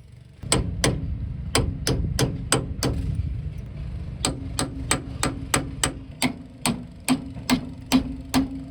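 Steady, repeated hammer blows on metal, about three a second, while a seized wheel bearing hub is being knocked free, with a low rumble underneath.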